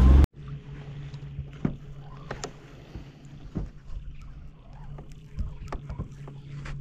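Small boat on the water: a steady low hum with scattered knocks and light splashes against the hull.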